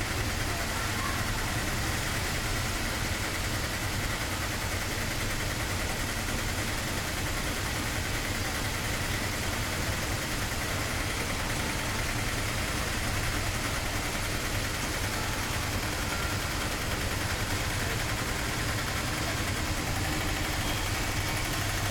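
Auto-rickshaw engines idling steadily in a standing line of vehicles.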